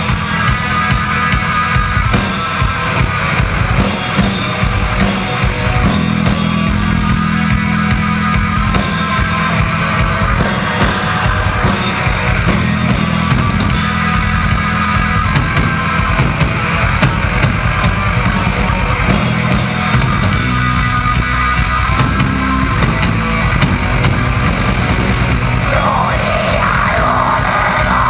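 Black metal band playing live at full volume: distorted electric guitars and bass over rapid, dense drum-kit hits, heard from among the audience. Near the end a new guitar figure comes in.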